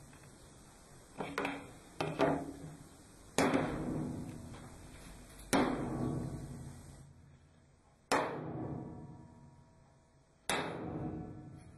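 A series of six sharp strikes, each ringing and dying away over a second or two, the two in the middle loudest.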